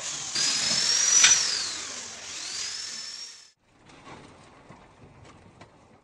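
Electric drill running with a high whine that rises and falls in pitch, drilling a hole in the ceiling for a fan fastener. It cuts off after about three and a half seconds, followed by a few faint knocks.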